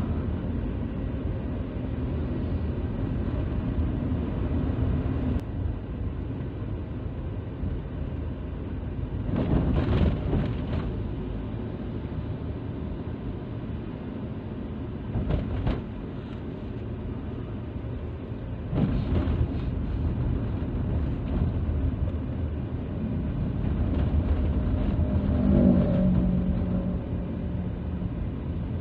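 Car driving along a road, heard from inside the cabin: a steady low rumble of engine and tyre noise with a few louder rushes along the way, and a short humming tone near the end.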